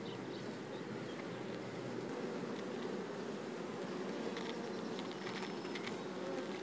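Honey bees buzzing in a steady, many-voiced hum around an open hive whose brood frames are being inspected, with a few faint clicks partway through.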